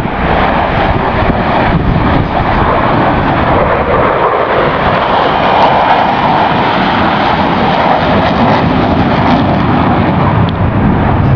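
Jet engine noise from a formation of military jet fighters flying past, swelling to its loudest about halfway through and easing off toward the end.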